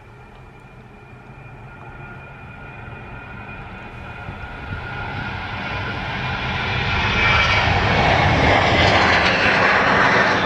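Boeing 737-800 jet engines at take-off thrust as the airliner rolls down the runway, rotates and lifts off. The roar grows steadily louder and is at its loudest over the last few seconds.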